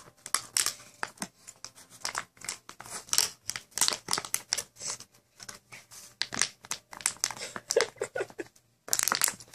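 Dachshund biting and tearing at a clear plastic bottle with its bottom ripped open, the plastic crinkling in quick, irregular crackles as she works to get at the treats inside.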